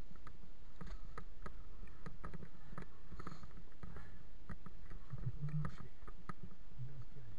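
Low rumble from wind and road on a bicycle-mounted camera as the bike rolls slowly, with scattered light clicks and rattles, about three or four a second, at no even spacing.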